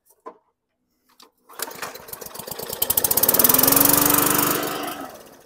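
Hyper Tough walk-behind lawn mower's small engine pull-started after priming, catching about a second and a half in and running. Near the end it slows and fades out as it stops.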